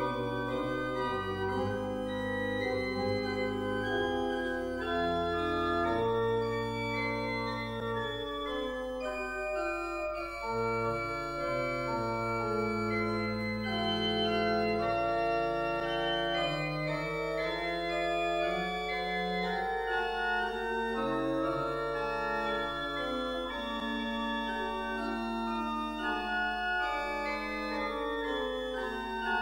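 Organ postlude closing a church service: sustained chords that change every second or two over low bass notes.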